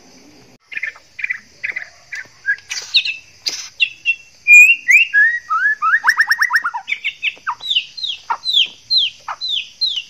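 Male white-rumped shama singing a varied whistled song in breeding condition. It starts under a second in, breaks into a rapid trill about six seconds in, then repeats a run of downward-sliding whistles about two a second.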